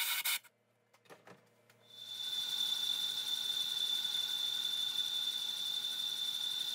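A brief clatter of hand-tool clicks, then about two seconds in a vintage South Bend metal lathe starts up and runs steadily with a high whine. Its boring bar is cutting the sintered bronze bushing in an impact driver's gear case.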